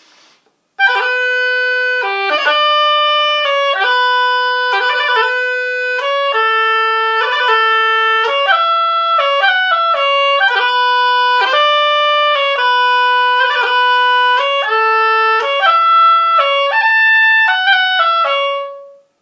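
Solo oboe played in a bagpipe-imitating Celtic style: a tune taken slowly without a break, its held notes snapped apart by quick grace-note ornaments. It starts about a second in and stops just before the end.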